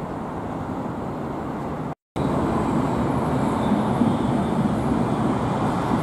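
Steady street noise, then after a brief cut about two seconds in, a RET Alstom Citadis low-floor tram passing, a louder steady rumble of its wheels running on the rails.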